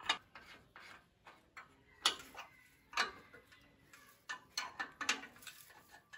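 Irregular sharp metal clicks and taps from hand work at the hub of a band sawmill's steel wheel, a dozen or so over a few seconds, with no motor running.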